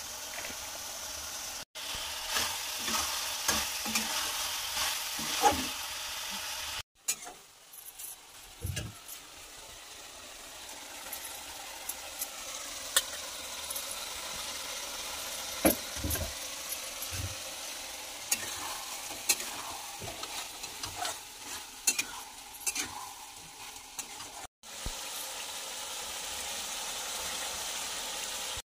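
Chicken curry sizzling in a steel kadai on a gas burner as it is stirred, with a spoon clicking and scraping against the pan now and then.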